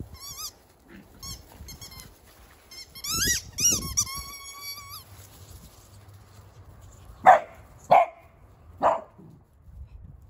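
Miniature dachshund barking three times in quick succession in the second half, the loudest sounds. Before that comes a run of high, wavering squeaks.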